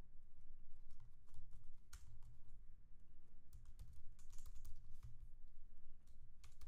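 Typing on a computer keyboard: uneven runs of key clicks.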